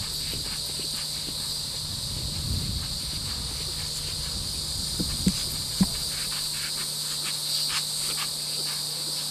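A pony cantering on grass turf, its hoofbeats thudding irregularly, with three heavier thuds about five to six seconds in, over a steady high insect drone.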